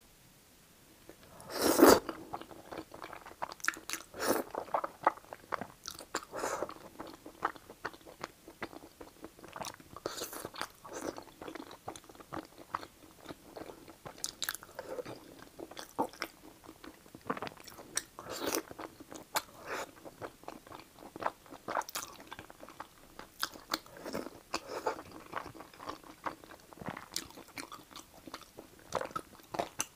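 A person eating thick fried rice noodles in a spicy sauce: a loud slurp about two seconds in, then wet chewing and smacking with short irregular bites for the rest of the time.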